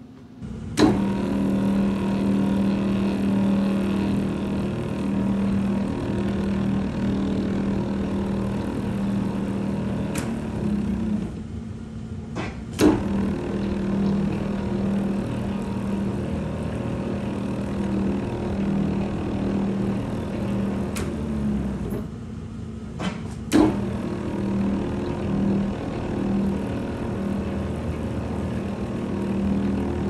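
Metal lathe running steadily with a pulsing hum while a knurling tool rolls a coarse diamond knurl into a ductile iron workpiece. A few sharp clicks and two brief dips break the hum.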